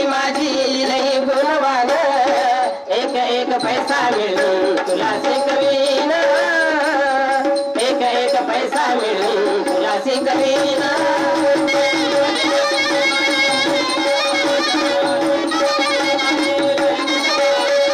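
Marathi folk-theatre music: voices singing over a dholak barrel drum and a hand-held frame drum, with a long steady tone held underneath.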